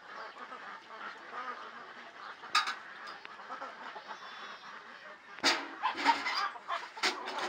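Domestic geese honking several times over yard ambience, the loudest calls clustered a little past halfway. There is a sharp click about two and a half seconds in.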